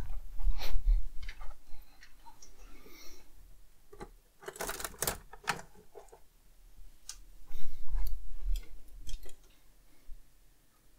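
Scattered clicks, knocks and rustling of objects being handled and moved about, with heavier thumps at the start and again about eight seconds in.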